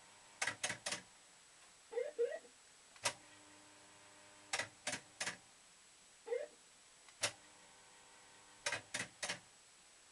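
Maygay Moon Bug fruit machine playing: a single clack as the reels set off, a faint hum while they spin, then three quick clacks as the three reels stop one after another, a cycle that comes round three times. Short electronic bleeps sound between spins.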